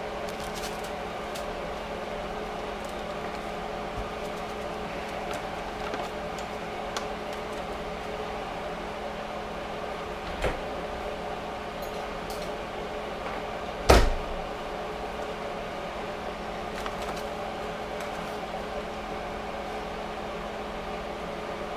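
Steady humming of a running kitchen appliance, with two sharp knocks: a small one about ten seconds in and a louder one about fourteen seconds in.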